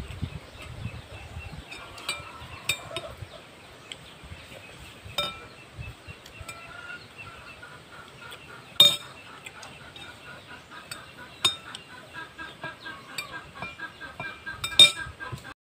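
Metal spoons and forks clinking and scraping against plates during a meal, with scattered sharp clinks, the loudest about 9 s in and near the end. Birds call rapidly in the background during the last few seconds.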